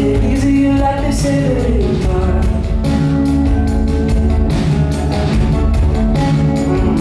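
Live rock band playing: electric guitars, bass and drums with a steady beat, with singing over it.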